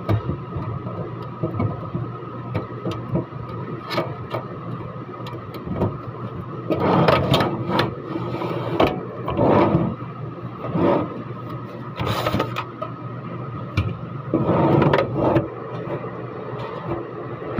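A drawer box being handled and slid along the metal drawer runners of an aluminium kitchen cabinet: scattered knocks and clicks, with louder runs of scraping about seven seconds in and again near the end. A steady hum runs underneath.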